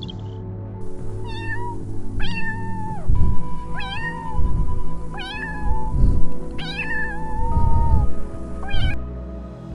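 Domestic cat meowing about six times, some calls short and two drawn out, over background music.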